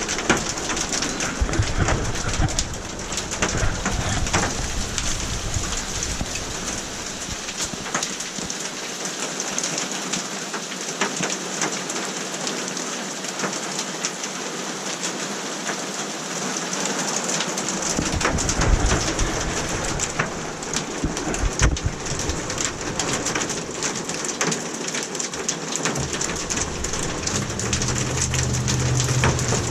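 Hail pelting a greenhouse, a dense, steady patter of many small impacts, with low rumbles about two-thirds of the way through and again near the end.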